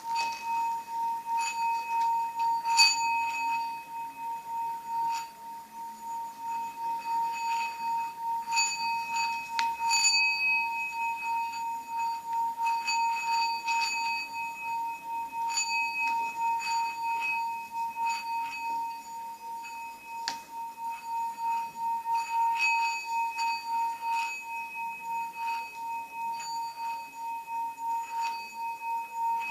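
Small 5 cm seven-metal Tibetan singing bowl ringing with one steady, unbroken tone and a regular wavering pulse, the sustained sound of a mallet being run around its rim. Scattered sharp clicks of the mallet against the rim sound through it.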